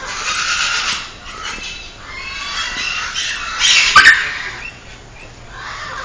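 African grey parrot squawking in several harsh calls, the loudest about four seconds in.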